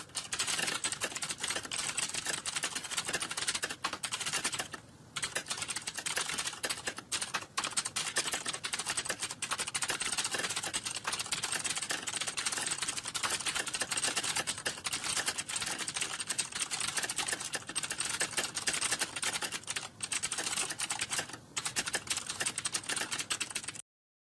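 Fast, continuous typing on a computer keyboard, a dense stream of key clicks with two short pauses, about five seconds in and about twenty-one seconds in. It stops abruptly near the end.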